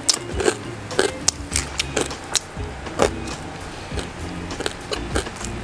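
Close-miked chewing of crispy deep-fried pork belly (lechon kawali): sharp crunches a few times a second, over soft background music with a steady bass line.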